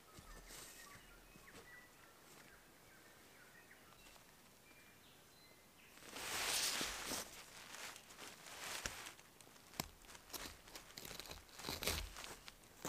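Faint, sparse bird chirps, then about six seconds in a burst of nylon tent fabric rustling, followed by scattered crunches and clicks as a tent corner is pulled taut and pegged into leaf-littered ground.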